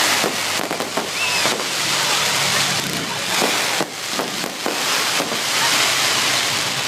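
Fireworks going off: a dense crackling hiss with several sharp bangs scattered through it.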